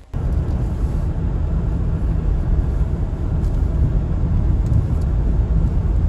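Car driving on a snow-covered road, heard from inside the cabin: a steady low rumble of tyre and engine noise.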